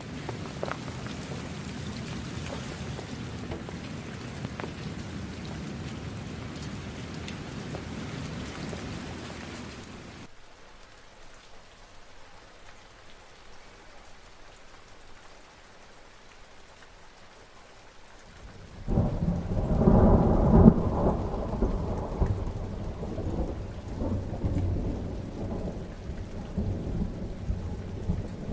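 Steady rain that drops abruptly to a quieter, softer rain about a third of the way in. Near the end, a loud peal of thunder breaks in suddenly, rumbles low and slowly fades under the rain.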